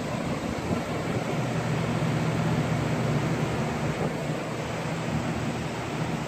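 Many electric fans running together, a row of box fans and pedestal fans, giving a steady rush of moving air with a low motor hum beneath it.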